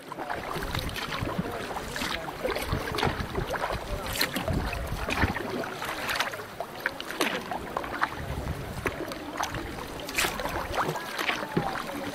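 Canoe paddles dipping and splashing in sea water, about one stroke a second, over steady water rush. Wind gusts rumble on the microphone.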